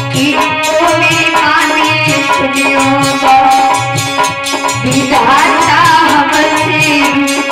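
A woman singing a Hindi farewell song (vidai geet) live into a microphone, her voice climbing higher about five seconds in. Under it are steady held notes and a drum beat about twice a second.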